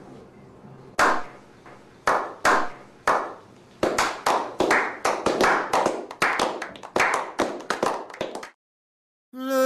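A small group doing a slow clap: single hand claps about a second apart that quicken into brisk applause, which stops abruptly near the end.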